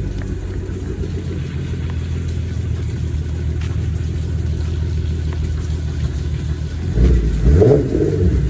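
A 3.6-litre VR6 engine running through custom headers and a resonator-and-muffler exhaust, steady and low, then revving up briefly about seven seconds in.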